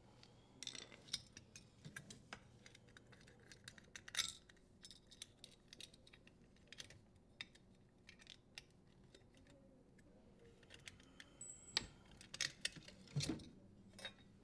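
Faint scattered metallic clicks and taps as a strain relief nut is unthreaded by hand and the strain relief and power cord wires are pulled free of a dishwasher's sheet-metal terminal box. A few louder clicks come about four seconds in and near the end.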